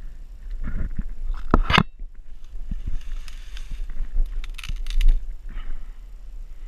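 Leaves, twigs and branches crackling and snapping as someone pushes through dense undergrowth on a creek bank, with a sharp snap about two seconds in, over a low steady rumble.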